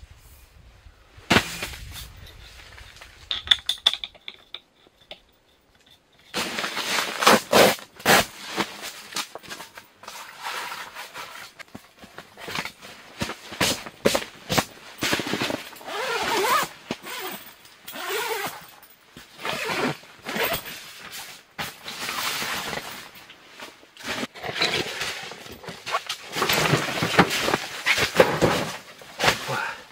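Nylon tent fabric rustling and crinkling with sharp clicks and knocks as a pop-up hub hot tent is pushed out and handled from inside. A single click comes about a second and a half in, and the rustling grows dense and irregular from about six seconds on.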